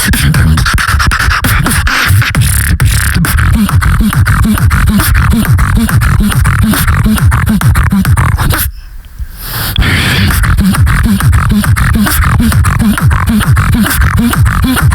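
Solo human beatboxing: a bass drop of deep, pulsing vocal bass under fast mouth-made kicks, snares and hi-hat clicks in a steady beat. The beat cuts out for about a second near nine seconds in, then drops back in.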